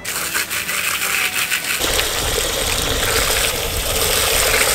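A few rattling clicks, then, about two seconds in, a garden hose spray nozzle starts gushing water steadily onto a plastic waterer dish and into a bucket.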